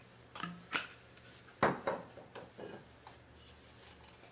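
A series of light clicks and knocks from a water bottle and glassware being handled on a countertop. The loudest knock comes about one and a half seconds in, and a few softer ones follow.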